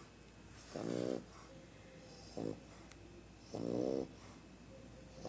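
French bulldog snoring: rasping, pitched snores about every second and a half, alternating longer and shorter breaths.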